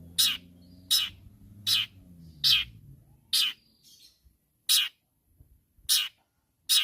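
Long-tailed shrike (cendet) giving a series of short, harsh calls, about one a second, with a few faint whistled notes between them: the bird's aggressive rival-calling song.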